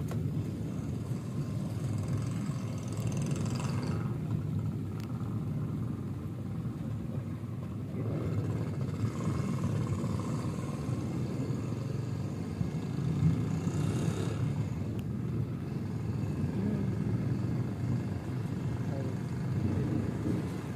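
Low, continuous rumble of rolling thunder, swelling several times, most sharply about fourteen seconds in.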